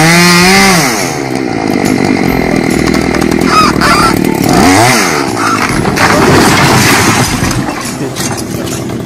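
Chainsaw running at high revs as it cuts into a straw-and-clay wall, its engine note dipping under load. About a second in the steady note breaks up into a long, noisy rumble and clatter as the wall section collapses.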